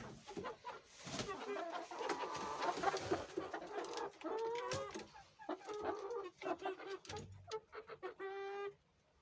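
Chickens clucking, a series of short calls mixed with scattered sharp taps, and one longer drawn-out call near the end.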